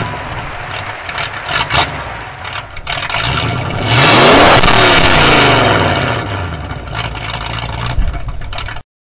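A vehicle engine revving hard, its pitch rising and falling, loudest about four to six seconds in. The sound cuts off abruptly near the end.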